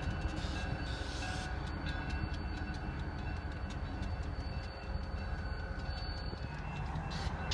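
Diesel freight locomotive idling: a steady low rumble with a thin, steady whine above it.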